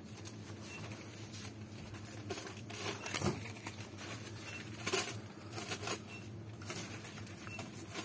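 Gloved hands handling a cardboard-and-plastic blister package, giving scattered rustles and taps over a steady shop background hum.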